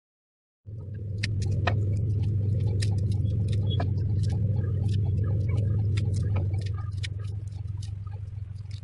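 Garlic cloves being peeled by hand with a small knife over a wooden chopping board: dry papery skins crackling and the blade clicking in quick irregular ticks. Under it a steady low hum, which comes in abruptly under a second in and eases off about two-thirds of the way through.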